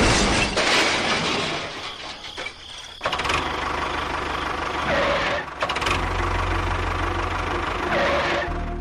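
An engine running with a steady low hum. A louder noisy sound fades over the first three seconds, and the engine sound starts up again about three seconds in.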